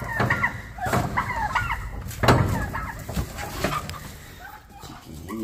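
A flock of chickens clucking, many short calls overlapping, with a louder sudden noise about two seconds in.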